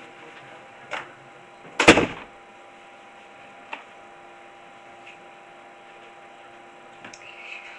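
A door shut with a loud bang about two seconds in, after a lighter knock about a second in; a faint steady hum runs underneath.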